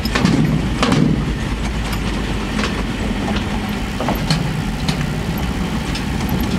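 Truck engine running, heard from inside the cab, as the truck rolls slowly over the metal plates of a pontoon bridge, with several sharp clunks as the tyres cross the deck joints.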